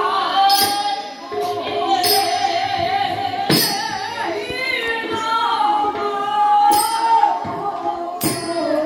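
Manipuri Raas Leela devotional music. A voice sings a long, wavering melody over regular percussion strikes, about one every second and a half.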